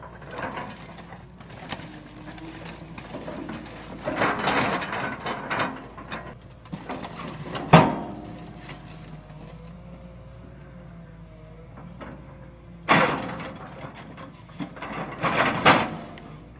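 Excavator demolition grapple crunching and tearing a scrap car's sheet metal, with scraping and creaking in several bursts and one sharp metal bang about eight seconds in, over the excavator's steady engine hum.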